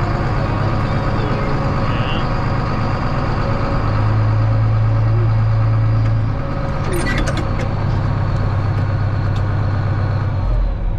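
John Deere 4555's six-cylinder diesel running steadily, heard from inside the cab, with its exhaust going out through a straight chrome pipe and no muffler. The engine note eases a little about six seconds in and drops lower near the end, with a few light clicks around seven seconds in.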